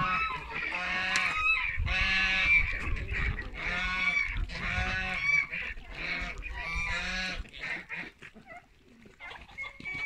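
Domestic waterfowl calling over and over, a run of pitched calls about one or two a second that stops about seven and a half seconds in.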